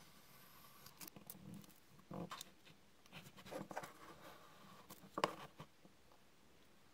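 Quiet paper-craft handling sounds: a utility knife cutting card and gold paper on a cutting mat, with paper rustling and light taps and clicks, the sharpest click about five seconds in.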